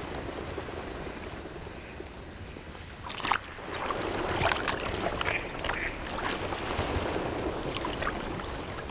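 Water sloshing around a hunter's legs in flooded timber, then from about three seconds in a run of duck quacking.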